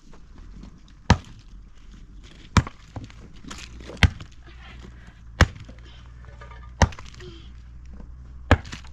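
Six sharp blows struck at a steady pace, about one every second and a half, with the sound of chopping.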